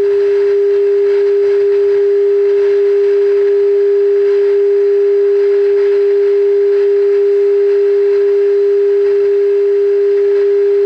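Steady single-pitch tone from a Zenith AA5 table radio's speaker, the signal generator's test tone coming through the set as it is peaked during alignment.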